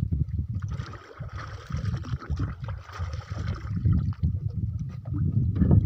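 Wind buffeting the microphone in an uneven rumble over water sloshing against a small fishing boat, with a splashing hiss for a couple of seconds starting about a second in.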